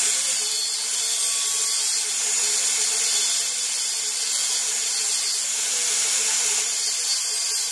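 Makita angle grinder running at a steady speed, its disc grinding a small hand-held steel piece with a loud, even hiss over the motor's hum.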